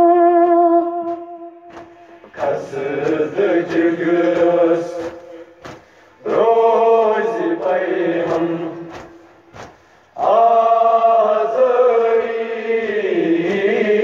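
Noha lament chanted in Kashmiri: a boy's voice holds a long note, then three chanted phrases follow, each a few seconds long, with sharp beats between and under them.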